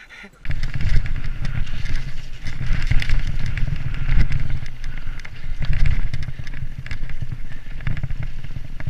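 Mountain bike ride down a dirt woodland trail: tyres rolling over dirt and roots, with constant clatter and rattle from the bike over bumps and a heavy rumble of wind on the microphone. It starts abruptly about half a second in.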